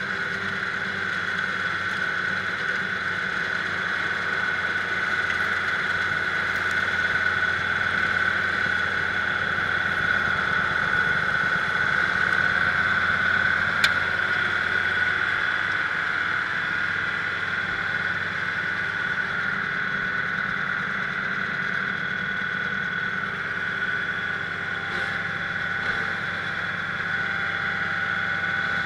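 An engine running steadily at a constant speed, with a steady high whine over it. One sharp click comes about halfway through.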